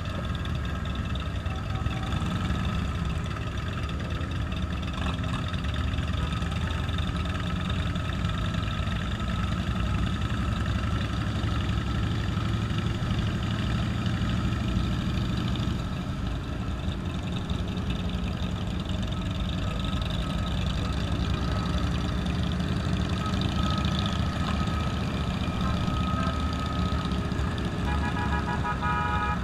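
Motorcycle engines running steadily on the move, the rider's 2015 Triumph Bonneville T100 parallel-twin among them, as a continuous low rumble. A faint pitched tone joins near the end.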